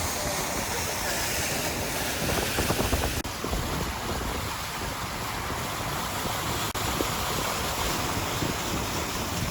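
Heavy hurricane rain and strong wind: a dense, steady hiss of downpour with wind buffeting the microphone.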